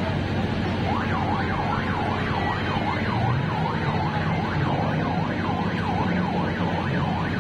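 An electronic siren wailing up and down about twice a second, starting about a second in, over a steady low motor hum.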